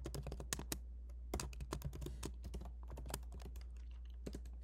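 Typing on a computer keyboard: a fast, irregular run of key clicks with short pauses between bursts.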